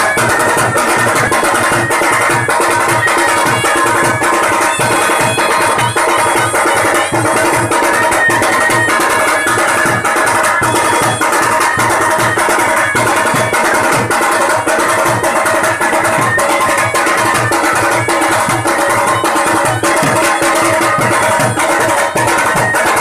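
Loud music with drums and a steady beat, playing for the palanquin dance.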